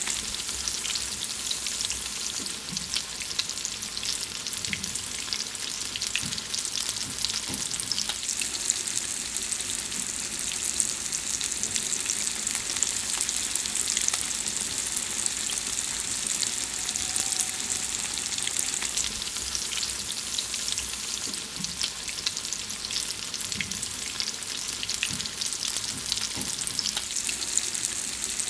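Food frying: a steady sizzle with dense, fine crackling and spitting throughout.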